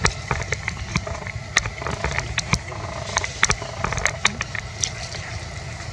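Irregular sharp clicks and crackles of dry leaves and grass as macaques scramble about close by, over a low steady rumble.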